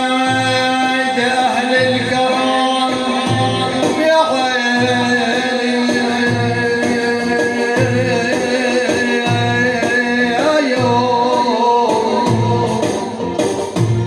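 Male Arabic nasheed singer holding long, ornamented sung notes over a steady held low note, with a low drum beat about once a second.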